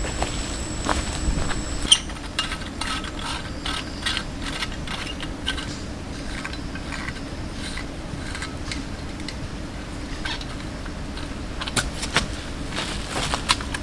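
A small hand shovel scraping and jabbing into loose, dry soil, in irregular strokes with a denser run of sharp strikes near the end. A steady high insect drone runs underneath at the start and cuts off at a sharp knock about two seconds in.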